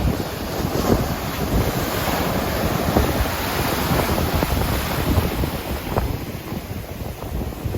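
Surf from a typhoon swell breaking and washing onto the beach, with wind buffeting the microphone. The wash swells fuller about half a second in and eases after about six seconds.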